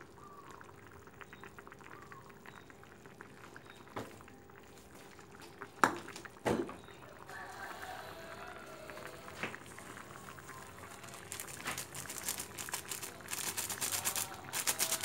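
Rendang sauce simmering in a pan with a faint, steady bubbling crackle, and a metal spoon clinking against the pan three times. Near the end, a denser crackling as a seasoning packet is emptied into the pan.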